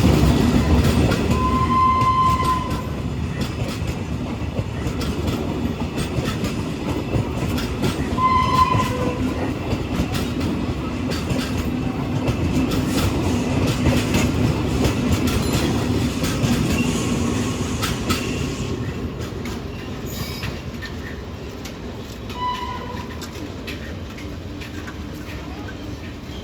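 Indian Railways express train running past, wheels clicking over the rail joints, the rumble slowly fading as it moves away. A train horn sounds three times: a longer blast about two seconds in, a short one about eight seconds in, and another short one late on.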